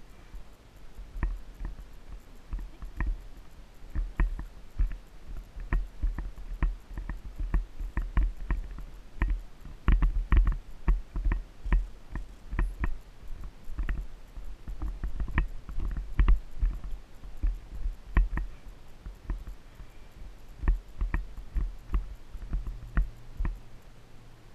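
Uneven knocks and low thumps, two or three a second, from an Icelandic horse moving along a sandy trail: hoofbeats and the jolting of the ride carried through the rider's camera, over a low rumble.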